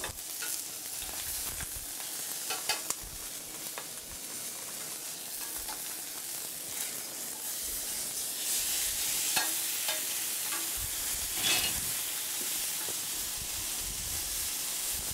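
A piece of turbot frying in a pan: a steady sizzle that grows a little louder about halfway through. A few light clicks and knocks come over it.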